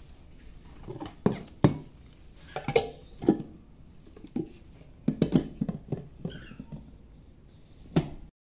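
Sharp clicks, knocks and clatter of plastic and glass as herbs are tapped off a plate into an electric mini chopper's glass bowl, then the plastic lid and the motor unit are set on top. The knocks come one by one over several seconds, with a cluster about five seconds in and a last loud knock near the end. The chopper is not yet running.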